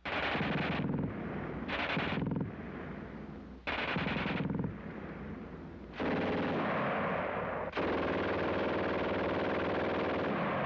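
German MG-42 machine gun firing several very rapid bursts, the last one long and continuous.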